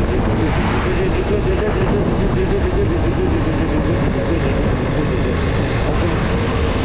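KTM 125 motorcycle's single-cylinder engine running at a steady cruise, its pitch wavering a little, under heavy wind rumble on the microphone while riding.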